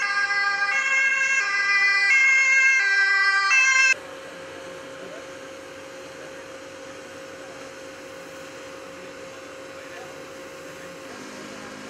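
Two-tone emergency vehicle siren, loud and switching between a high and a low pitch about every 0.7 seconds, cut off abruptly about four seconds in. A quieter steady hum with a constant tone follows.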